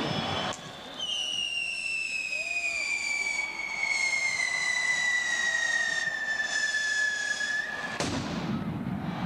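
Arena pyrotechnics going off, with a long whistle sliding slowly down in pitch for about seven seconds. The whistle cuts off with a loud burst of noise about eight seconds in.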